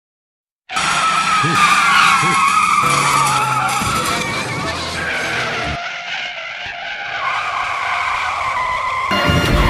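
Cartoon car tyre-skid sound effects: a series of loud, wavering, high screeches played one after another, starting just under a second in.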